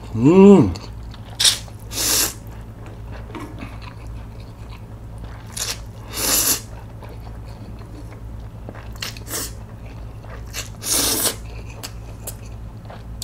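Close-up mouth sounds of a person eating spicy cold mixed noodles: three loud noodle slurps about four to five seconds apart, with chewing and small wet mouth clicks between them. A brief vocal sound comes right at the start.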